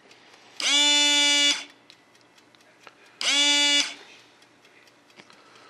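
Small battery-powered electric pump of a model retract air system buzzing in two short runs, about a second and then under a second, each starting and stopping abruptly at a steady pitch.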